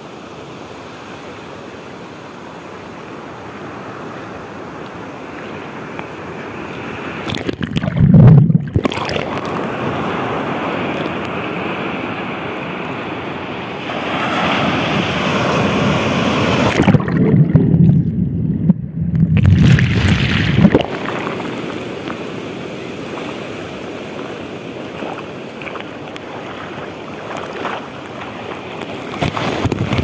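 Ocean waves breaking and washing around a camera held at water level in the surf. Twice, about eight seconds in and again around the middle, a wave swamps the microphone and the rush turns to a loud, muffled underwater rumble.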